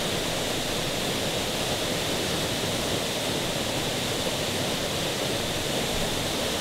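Steady rushing of a tall waterfall plunging into a pool.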